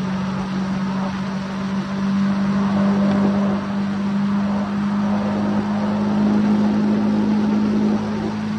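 Triumph Speed Triple S 1050's three-cylinder engine pulling steadily at highway speed, its drone edging slightly higher in pitch. Wind rushes and buffets over the microphone throughout.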